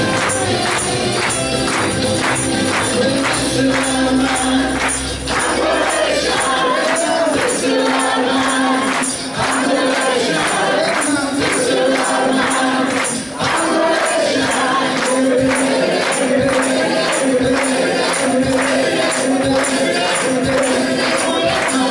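A group of voices singing a song to a steady tambourine beat, with instrumental backing.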